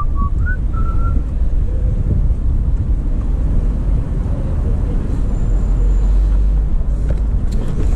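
Wind buffeting the microphone, a loud, unsteady low rumble throughout. A few short high chirps come in the first second, and there are some light clicks near the end.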